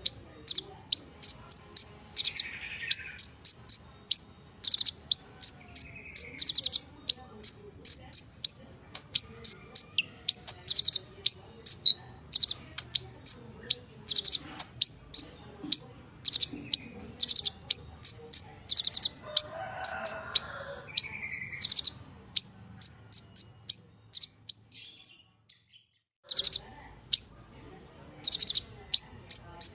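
Purple-throated sunbird singing: a fast, unbroken run of high, sharp chirps and short buzzy trills, pausing briefly near the end before starting again.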